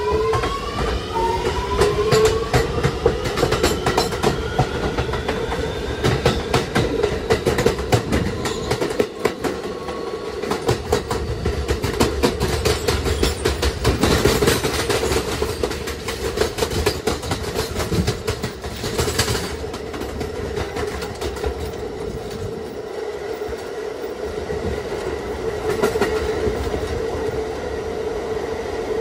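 A New York City Subway R211A car's Alstom OptONIX IGBT-VVVF traction inverter whines and rises in pitch for the first few seconds as the train gathers speed. The car then runs on with a steady drone and constant wheel-on-rail clatter.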